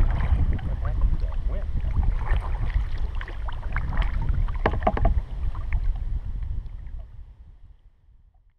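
Kayak paddle strokes splashing in choppy lake water, with wind rumbling on the microphone. The sound fades out near the end.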